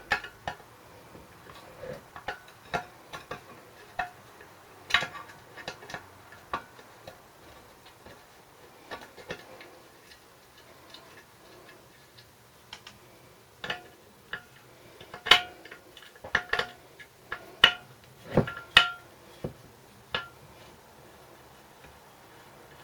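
Hand tools clinking and tapping on small-engine metal parts: scattered sharp clicks and light knocks, some ringing briefly. They come more often and louder in the second half.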